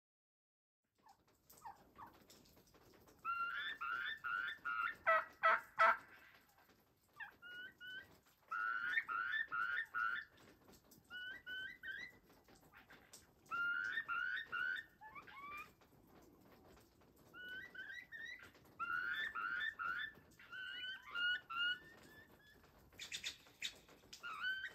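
Flock of wild turkeys calling, starting about a second in: runs of short, pitched notes in bouts every few seconds.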